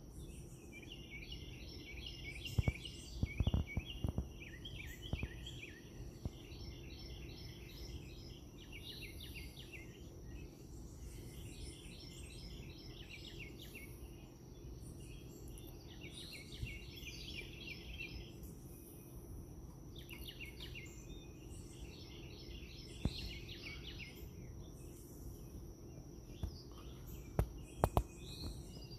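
Birds singing outdoors in repeated phrases of fast, high chirps every few seconds, over a steady high insect-like buzz and a low background hum. A few sharp knocks break in, several near the start and a cluster near the end.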